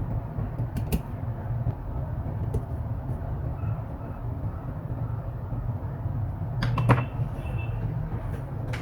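Light clicks and knocks of a laptop's plastic case being handled and closed up during reassembly, over a steady low hum. A cluster of sharper clicks about seven seconds in is the loudest moment.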